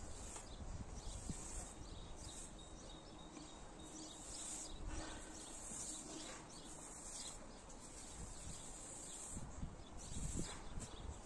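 Stiff-bristled push broom sweeping compost top dressing into a lawn: faint, irregular brushing strokes on the grass.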